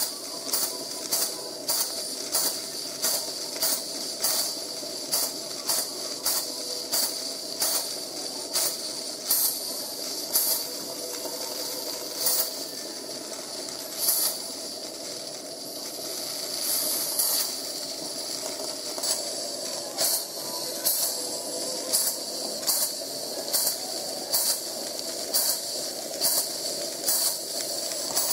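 Steam-driven feed-water pump on a Regner 99 222 live-steam garden locomotive working, each stroke a short puff of steam, a little more than one a second, over a steady hiss. The strokes slow and come unevenly for a few seconds in the middle, then pick up again.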